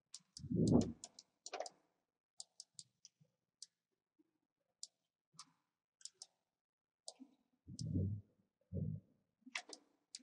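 Computer mouse clicking in scattered single clicks at an irregular pace, with a few low, muffled thumps about half a second in and again around eight and nine seconds in.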